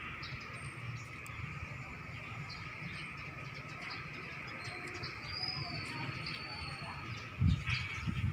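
Outdoor ambience of birds chirping and calling over a steady insect drone, with one thin drawn-out whistle about midway. A low rumble runs underneath, with a dull thump near the end.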